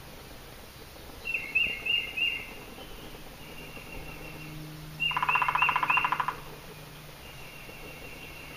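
A woodpecker drumming on a dead tree limb: one fast, even roll about a second long, starting about five seconds in. Near the start a bird gives a short series of four quick falling call notes, and fainter notes follow.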